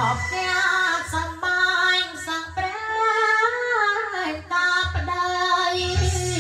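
A man singing a melody into a handheld microphone over a backing track, with long held notes, a steady bass line and a regular beat.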